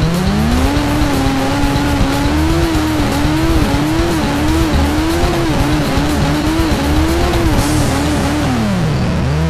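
Sport motorcycle engine running at high revs, its pitch climbing sharply at first, then rising and dipping in quick repeated swells, and dropping near the end before picking up again.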